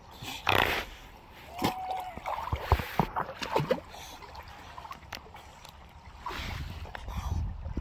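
Water splashing and sloshing as young fur seals swim up against an inflatable boat, with a loud splash about half a second in. A few short, high calls from the seals come between about one and a half and four seconds in.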